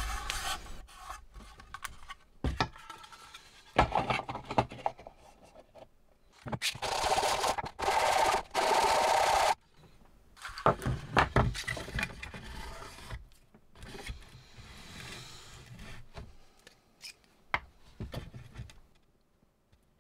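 A 3D-printed PLA bucket part being rubbed by hand on a sheet of sandpaper. Scratchy sanding comes in irregular bursts, the longest steady run lasting about two seconds a little before the middle. Between the passes there are light clicks and knocks of the plastic part being handled.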